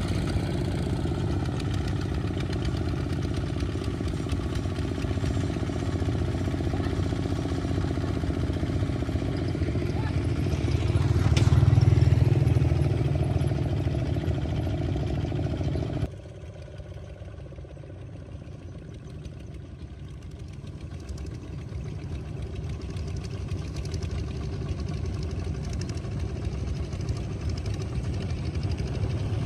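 Several small two-wheel walking tractors' single-cylinder diesel engines running steadily as they pull loaded trailers through mud. The engine sound swells louder before the middle, then drops sharply a little past halfway and slowly builds again.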